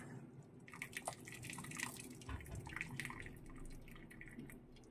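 Water dripping and splashing back into a kadai as blanched fenugreek and spinach greens are lifted out of the hot water with a spoon: faint, scattered small drips and splashes.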